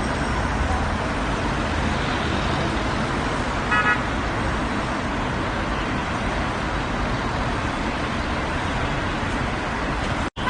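Road traffic noise, a steady rumble and hiss of cars, with one short car-horn toot about four seconds in. The sound drops out for a split second near the end.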